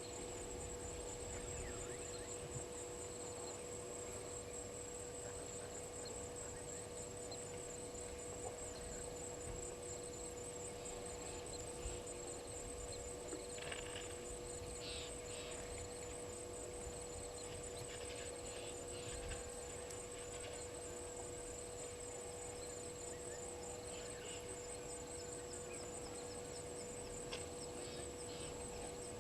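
Bushveld waterhole ambience: a steady, high, rapidly pulsing insect trill, a low call repeating about every second and a half, and short bird chirps scattered through the middle, over a steady low hum.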